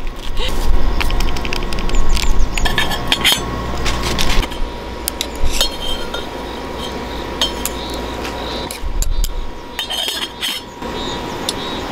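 A metal utensil clinks and scrapes against a stainless steel pot while noodles are stirred, with the pot's metal lid clanking as it is lifted off and set back on. The sound comes as a string of irregular sharp clinks.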